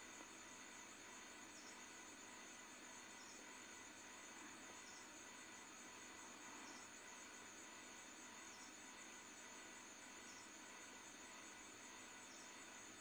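Near silence: faint steady hiss with a thin, high, unbroken tone and a soft, short chirp about every second and a half.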